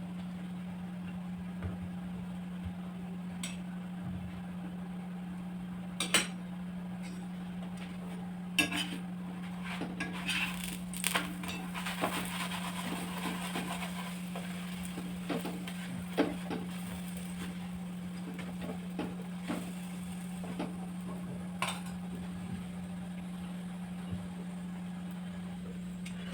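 Metal utensils clinking and scraping against cookware, a handful of sharp clinks spread out with a busier stretch of scraping in the middle, over a steady low hum.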